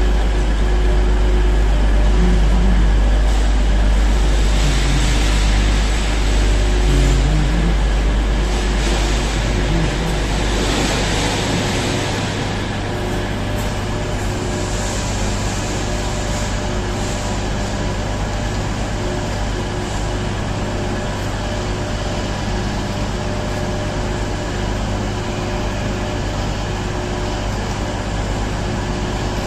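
Steady hum and noise of a large train-shed station with trains standing at the platforms, a machine-like drone under a hiss of ambience. A deep rumble is strong for the first ten seconds or so, then eases.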